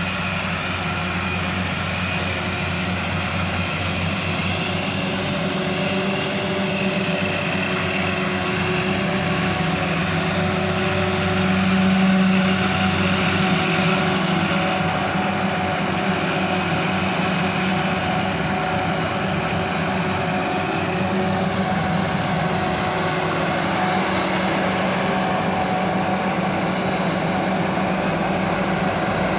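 Self-propelled forage harvester running steadily while chopping barley for silage, its engine and chopping drum heard from inside the cab. The sound swells briefly about twelve seconds in.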